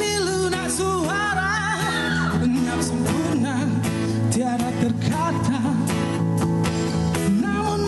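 Band playing a pop-rock song live, a lead singer's voice with vibrato over guitar, bass and a steady drum beat.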